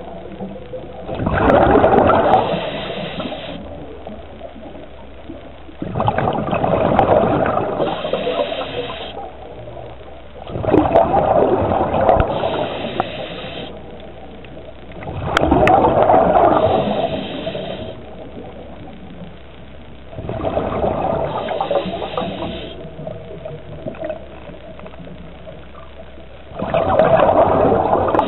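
A scuba diver breathing through a regulator underwater: each breath is a rush of bubbles followed by a short hiss, repeating about every five seconds, six times.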